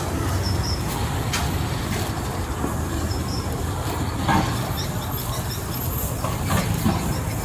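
Street-side food stall ambience: a steady low rumble of traffic and stall noise, with a few short sharp clinks scattered through.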